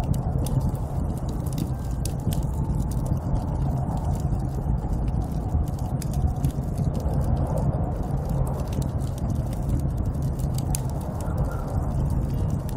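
Snowstorm wind as a steady, even rush, heaviest in the low end, with frequent small sharp crackles and ticks scattered through it.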